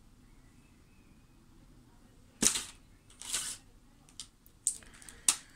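Handling noise: after a quiet start, two short rustles about two and a half and three and a half seconds in, then a few sharp clicks near the end.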